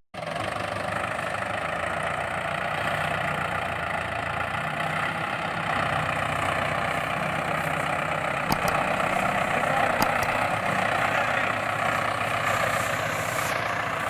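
Toy tractor running with a steady engine-like mechanical drone, with a couple of faint ticks in the middle.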